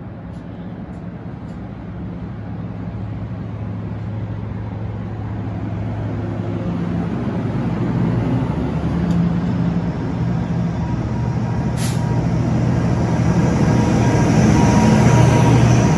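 NJ Transit multilevel commuter train pulling out and rolling past, its wheels rumbling on the rails, with the steady engine note of its ALP-45DP locomotive growing louder as the locomotive at the rear draws level. A single sharp click about twelve seconds in.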